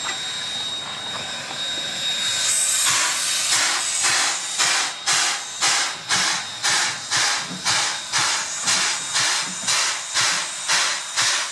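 C10 steam tank locomotive letting off a steady hiss of steam, then starting away: from about three seconds in, its exhaust beats out an even chuff about twice a second.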